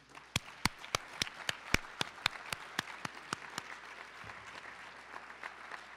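Audience applauding, with one set of hands clapping close by at about three to four claps a second for the first few seconds before the applause thins out.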